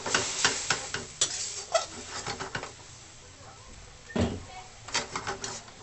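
Metal spatula scraping and clattering against a steel wok as squid is stirred and sautéed, in quick clusters of clicks with a heavier knock about four seconds in. A faint sizzle of the frying runs underneath.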